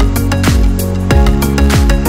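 Background electronic music with a steady beat of deep kick drums and hi-hats over held synth tones.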